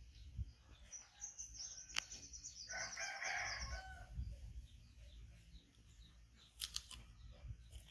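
A rooster crows once, about three seconds in, over a high rapid trill, with a few sharp clicks near the end.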